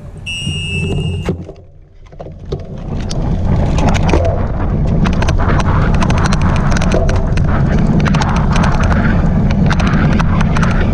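A start whistle blows for about a second, then the cyclocross bike gets going: wind rushing over the bike-mounted camera's microphone grows loud, with a dense, irregular clicking and rattling that the rider calls an odd clicking noise.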